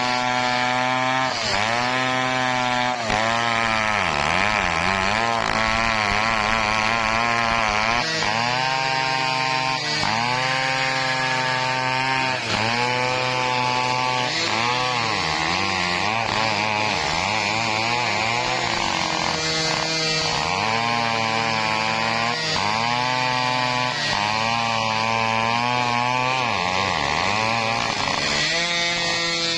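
Stihl 070 two-stroke chainsaw cutting lengthwise through teak at high revs, its engine note sagging under load and picking back up over and over, every second or two.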